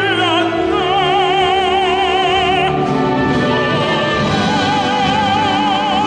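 A tenor singing a Korean art song in operatic style with wide vibrato over instrumental accompaniment. He holds two long notes, the first ending just under three seconds in and the next starting shortly after.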